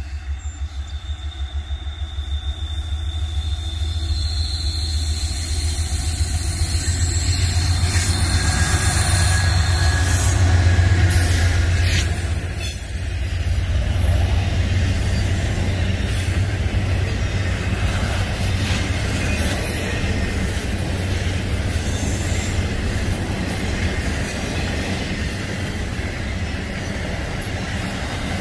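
Freight train passing: a GE AC44C6M diesel locomotive approaches with a pulsing engine throb that grows to its loudest about 12 seconds in, then the train's cars roll by with a steady rumble. Thin high wheel squeal sounds over the first half.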